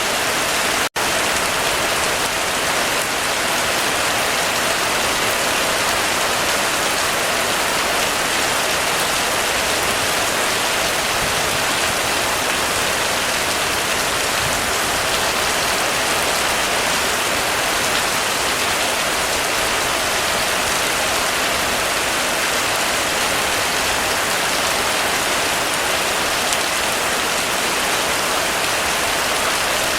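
Heavy rain drumming steadily on a roof, a dense even downpour. It drops out for an instant about a second in.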